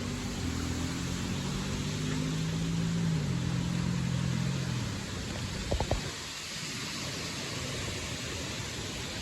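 Strong gust-front wind blowing steadily in a severe thunderstorm, as a constant rushing noise. A low droning hum runs under it for the first five seconds or so, and a couple of sharp knocks come about six seconds in.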